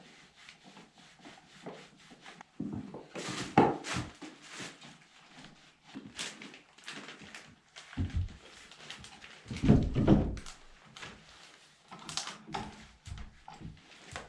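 Irregular knocks, clicks and a few heavier thuds from hand work, such as handling tools, boards and electrical boxes, with no steady machine sound.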